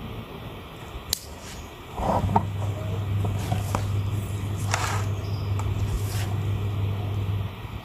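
A single sharp snip of pruning shears about a second in. Then a steady low engine hum starts about two seconds in and runs until shortly before the end, with a few scraping rustles over it.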